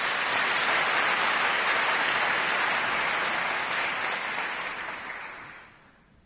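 Theatre audience applauding, a dense patter of clapping that dies away over the last second or two.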